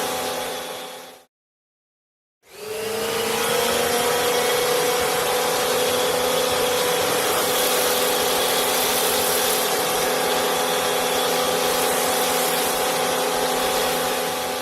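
Pressure washer running steadily, its pump and motor humming under the hiss of the spray. It fades out about a second in and is silent for about a second. It then comes back with a hum that rises slightly in pitch as it comes up to speed, runs steady, and fades out near the end.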